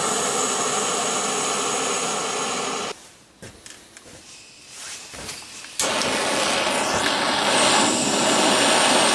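Refillable butane torch burning with a steady jet hiss, which cuts off abruptly about three seconds in, leaving a few faint clicks, and starts again just as abruptly about six seconds in.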